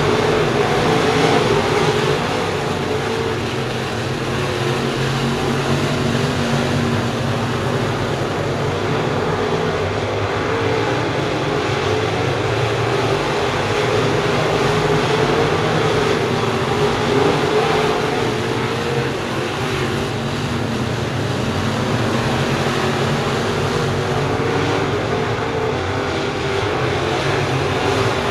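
A pack of crate late-model race cars running laps on a dirt oval, their V8 engines droning steadily as a group, the engine note wavering up and down as the cars circle.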